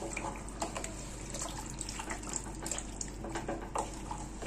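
Wooden spatula stirring beef pieces in watery curry masala inside an aluminium pressure cooker: wet sloshing and squelching, with irregular light knocks of the spatula against the pot.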